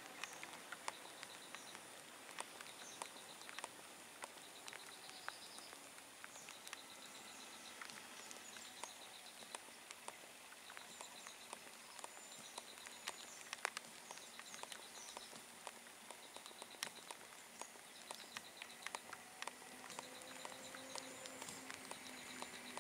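Quiet outdoor ambience of birds and insects: short chirps, rows of rapid high ticking calls, and scattered sharp clicks. A low steady hum comes in near the end.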